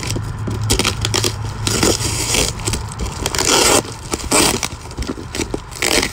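Plastic bubble-wrap packaging being pulled and crumpled by hand, giving an irregular run of crinkling and rustling that is loudest a little past halfway.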